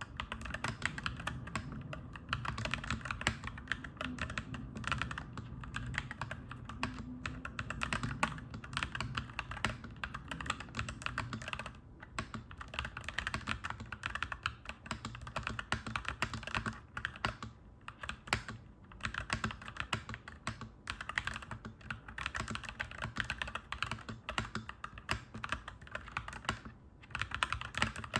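Clacky mechanical keyboard being typed on in a steady stream of fast key clacks, with a few brief pauses. A low rumble runs underneath and fades about halfway through.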